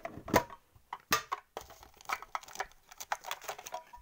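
A metal trading-card tin being handled and opened, with sharp clicks and clunks of the tin and its lid and the rustle of cards inside it.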